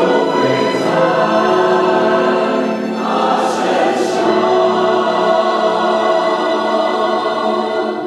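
Mixed church choir of men and women singing a hymn in sustained, flowing lines, with violins accompanying.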